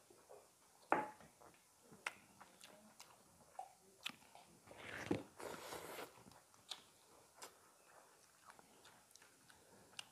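Two people eating chicken curry and rice by hand: faint chewing and lip smacks with scattered small clicks, the sharpest about a second in. A longer breathy hiss comes around five seconds in.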